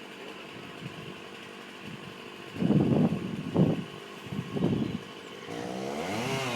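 Chainsaw engine running at idle, its pitch wavering and growing louder about five and a half seconds in. Three loud short bursts of sound come in the middle.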